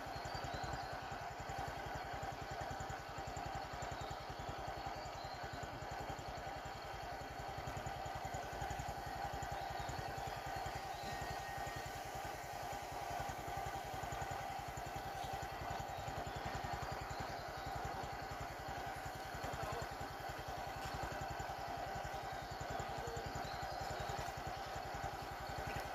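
An engine idling steadily: a constant hum over a fast, even low pulse that does not change.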